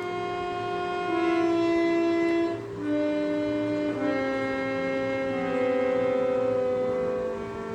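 Harmonium reeds played by a first-time child player: a low note held throughout while other notes are held for a second or two and then changed, not forming a tune. The sound dips briefly a little under three seconds in.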